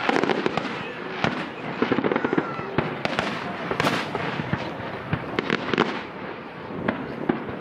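Fireworks going off in a continuous run of bangs and crackling pops, with no pause between bursts.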